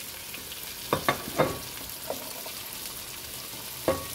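Food frying in oil in a pot, a steady sizzle, with a utensil knocking against the pan: three sharp knocks about a second in and another near the end.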